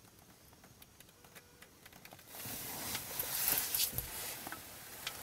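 Hushed car interior, then from about two seconds in a soft rustle with a few small clicks as the men shift in their seats, their leather jackets and clothing moving.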